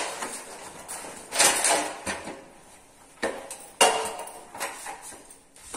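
Hard objects clinking and knocking against each other in separate strikes, some with a short metallic ring; the loudest knock comes about four seconds in.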